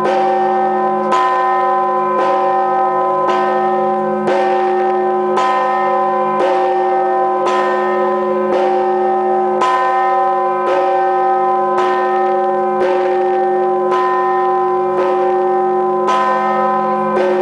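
Church bell tolled in a steady, even beat of about one strike a second (54 strikes a minute), each strike ringing on into the next with a sustained hum.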